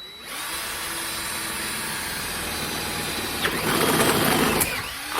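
Electric drill running and drilling a hole through the wall of a steel conduit pipe. There is a steady motor whine, then a louder, rougher cutting noise from about three and a half seconds in, as the bit bites through the metal.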